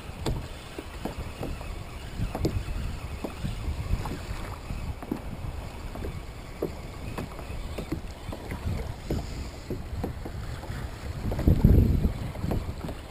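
Water lapping and slapping against a plastic kayak hull, with many small irregular knocks and wind rumbling on the microphone. A louder low gust of rumble swells near the end.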